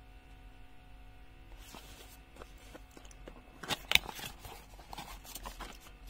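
A cardboard product box being handled and opened: faint rustling and scraping with scattered sharp clicks, starting about a second and a half in, the loudest a few quick clicks around four seconds in.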